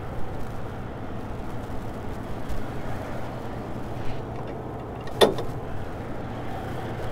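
Steady low drone of idling diesel trucks, with one brief sharp sound about five seconds in.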